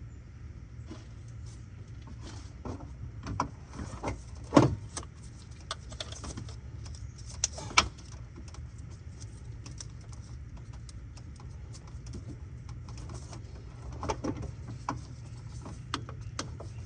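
Scattered metallic clinks and knocks of hand tools on metal parts, the two loudest about four and a half and eight seconds in, over a steady low hum.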